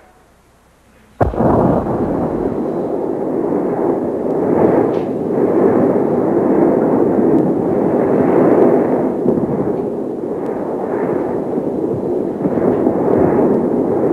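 Studio audience breaking into loud, sustained applause and cheering, starting suddenly about a second in.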